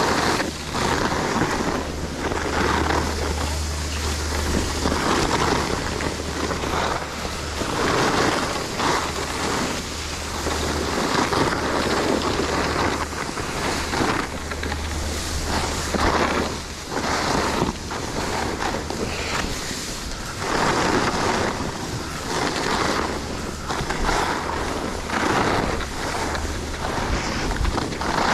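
Skis carving and scraping over packed snow in turn after turn, swelling every second or two, with wind rushing over the microphone.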